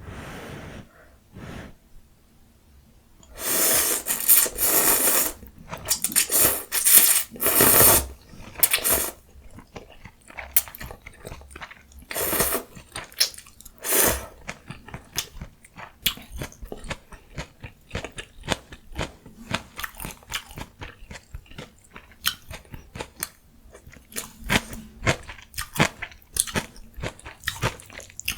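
Close-miked eating of green onion ramyun and mustard leaf kimchi: a run of loud, long noisy bursts a few seconds in, then steady chewing with many small wet clicks.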